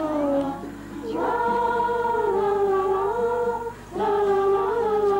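A group singing a song together to an acoustic guitar, in long held notes, with short breaks between phrases about a second in and near four seconds.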